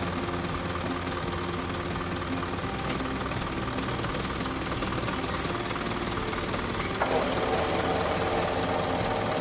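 Isuzu Elf crane truck's engine running steadily at idle. About seven seconds in, the sound steps up and a higher steady whine joins it.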